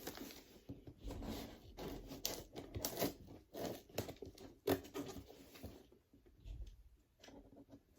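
Cardboard shipping box being pulled and torn open by hand: packing tape and cardboard tearing, with irregular rustling and scraping of the box, sparser near the end.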